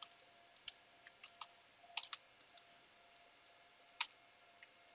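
Faint computer-keyboard keystrokes, a few scattered clicks as a web address is typed, with one sharper keystroke about four seconds in.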